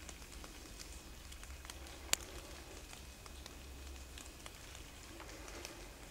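Faint woodland ambience: scattered light ticks and crackles, with one sharper click about two seconds in, over a steady low rumble.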